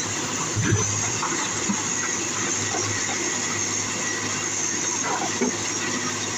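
Komatsu PC200 excavator's diesel engine running steadily, with a short knock less than a second in and another near the end.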